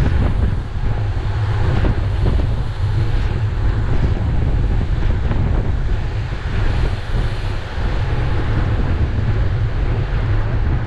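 Heavy wind buffeting the microphone of a bike-mounted camera on a racing bicycle at speed, a steady loud low rumble with hiss over it.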